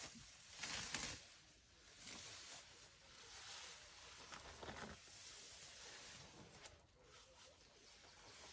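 African elephant bull feeding on grass: faint, irregular rustling and swishing as vegetation is pulled up and chewed.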